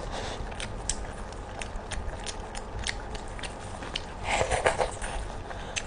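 Close-up eating sounds of a person biting and chewing chicken: a run of small crisp clicks and crackles, with a louder burst of crunching about four and a half seconds in.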